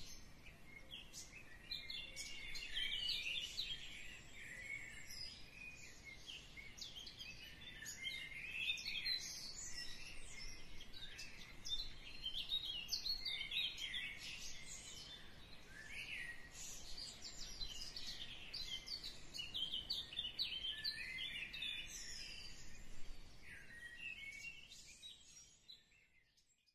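Birds chirping continuously, many short calls overlapping, fading out near the end.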